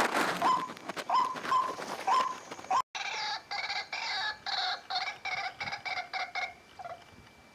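Marsh birds of the rail family calling. First comes a run of short, upward-hooked calls about twice a second, with a brief rush of noise at the start. Then, after a break, a faster chattering series of calls at about four a second stops well before the end.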